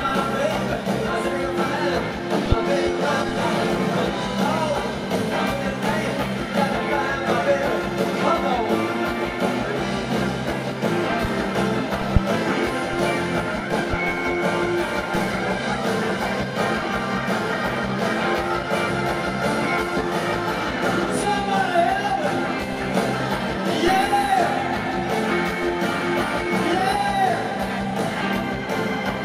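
Live rock band playing at a steady level: a male lead vocal over electric guitars, drums and organ.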